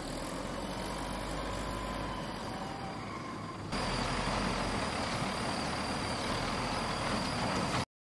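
Wheel loader's diesel engine running steadily, louder after a change about four seconds in, then cutting off suddenly near the end.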